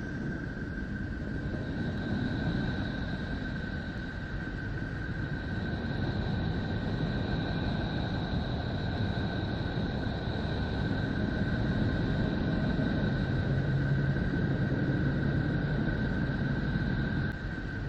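The so-called 'sound of Neptune', space radio signals converted into audible sound: a steady low drone of noise with two faint, thin high tones held steady above it. It swells slightly a few seconds in and dips briefly near the end.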